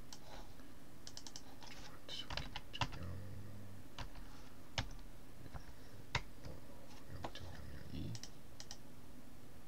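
Computer keyboard and mouse clicks: irregular taps of keys and buttons, with three sharper clicks standing out.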